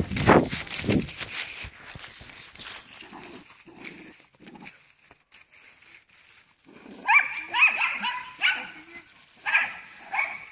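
Dogs fighting: scuffling and knocking in the first second, a few short low growls, then a run of short, high-pitched barks and yelps in the second half.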